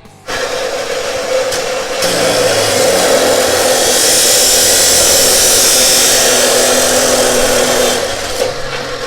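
Arc welder running a continuous bead on the bent pipe sections, a steady crackling sizzle. It starts abruptly, grows louder for most of its length, then eases off near the end.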